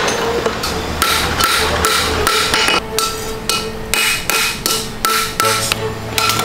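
Hand hammer striking a hot steel horseshoe on an anvil, shaping it over the horn: a steady run of blows, about two to three a second, each with a metallic ring.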